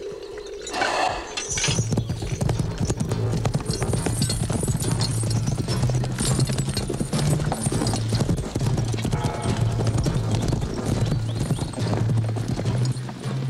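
A group of horses galloping over grass, with dense, irregular hoofbeats, over a low droning music score that comes in about two seconds in.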